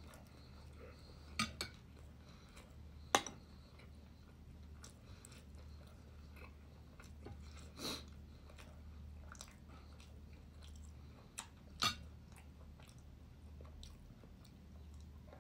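Close-up mukbang eating sounds: soft chewing of rice and chicken, with a handful of sharp clicks of a fork against a plate, over a steady low hum.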